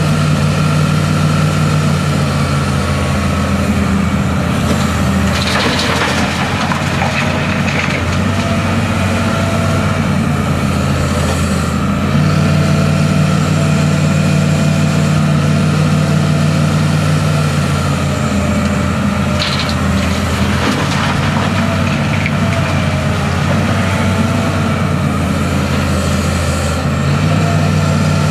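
Hitachi Zaxis 350LCN crawler excavator's diesel engine running steadily under hydraulic working load, its note strengthening and easing a few times as the machine digs. Twice, about five and twenty seconds in, a rougher, harsher noise rises over the engine.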